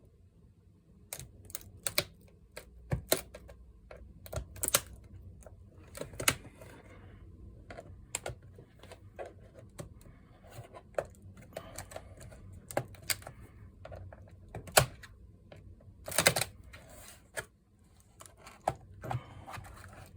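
Irregular clicks and taps of small tools and plastic parts as a Lenovo ThinkPad P71 laptop is taken apart, with a few sharper knocks among them.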